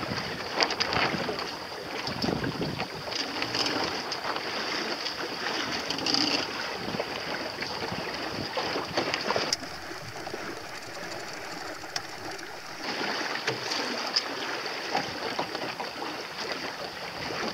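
Water rushing and splashing along the hull of a small boat under way, with wind noise on the microphone. The sound drops quieter for a few seconds about ten seconds in, then picks up again.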